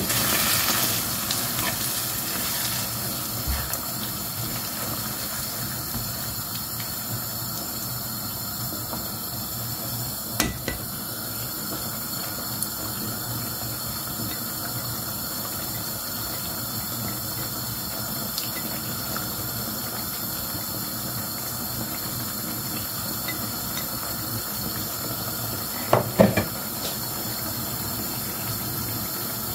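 Yogurt-based chicken curry simmering in a frying pan over a gas flame, cooking down to dry out: a steady hiss. A couple of brief knocks come about ten seconds in and near the end.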